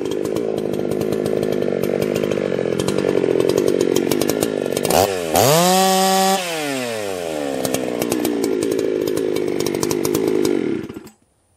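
Husqvarna two-stroke chainsaw cutting green oak logs under load. About five seconds in it revs up free to a high, steady pitch for about a second, then drops back into the cut. The sound stops abruptly near the end.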